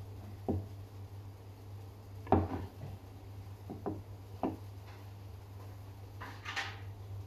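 A wooden bowl knocking on a table a few times, the loudest knock a little over two seconds in, over a steady low hum, with a brief rustling scrape near the end.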